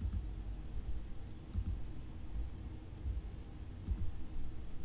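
Computer mouse clicking: one click, then two quick double clicks about two seconds apart, heard over a low steady rumble.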